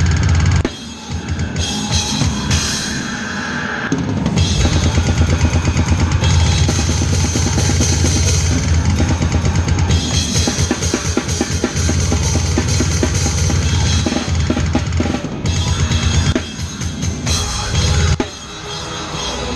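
Fast live metal drumming on a Tama kit with Meinl cymbals: rapid bass drum strokes under snare hits and washing cymbals, breaking off briefly a few times.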